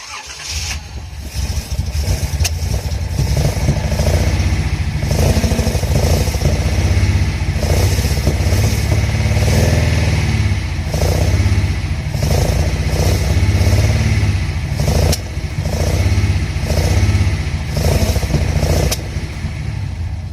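Nissan L28 2.8-litre straight-six engine of an old Fairlady Z running, the revs rising and falling in swells every second or two. It runs without any abnormal noise, which reassures the owner that the engine is sound.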